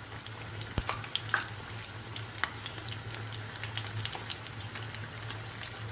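Spring rolls deep-frying in hot oil in a pan: a steady sizzle scattered with many small crackles and pops. A sharp click comes just under a second in.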